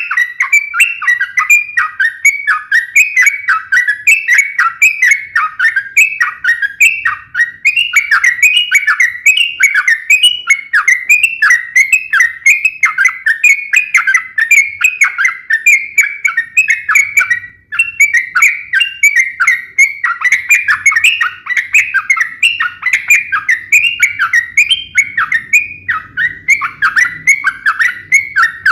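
Yellow-vented bulbul (trucukan) giving a rapid, unbroken run of sharp chirping calls, several a second, in its fast fighting (ropel) style, with one brief break about two-thirds of the way through.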